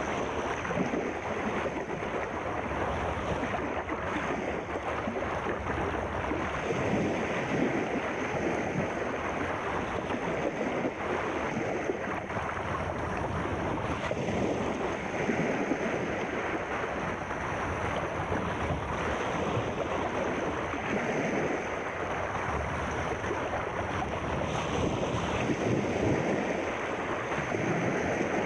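Sea waves washing in a continuous rush of surf that swells and eases gently, with a faint steady high tone underneath.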